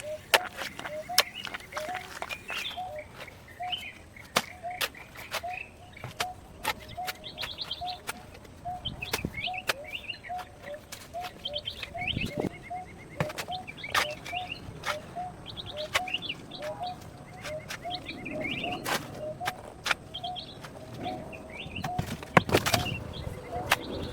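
Birds calling outdoors: one repeats a short note about twice a second, while others add higher chirps and trills. Sharp knocks and clicks come at irregular moments, with a cluster of louder ones near the end.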